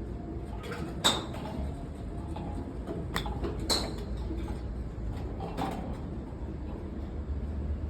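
Golf balls being struck by clubs at a driving range: a few sharp impact cracks, the loudest about a second in, more near three and four seconds and another between five and six seconds, over a steady low rumble.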